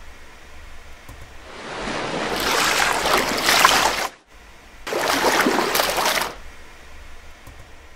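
Rushing, surf-like water in two surges. The first builds over about two seconds and cuts off suddenly, and the second, shorter one starts less than a second later and fades out.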